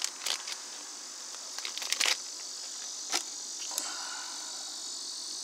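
Plastic card holders and sleeves clicking and crinkling a few times as a stack of trading cards is handled, over a steady high-pitched hiss.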